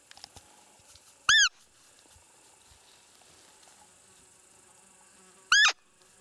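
Two short, high-pitched squeaks from a roe deer call, about four seconds apart, each rising then falling in pitch: the peep used to lure a roe buck. Insects chirr steadily underneath.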